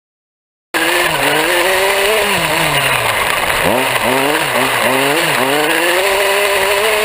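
Small two-stroke petrol engine of an Amewi Pitbull large-scale RC buggy, close to the onboard camera, revving up and down over and over as the throttle is worked, with a noisy hiss of wind and tyres behind it. It cuts in suddenly under a second in.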